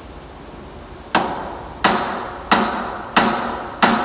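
Hammer striking a part of a T4S track wheel assembly: five steady blows about two-thirds of a second apart, starting about a second in, each trailing off briefly.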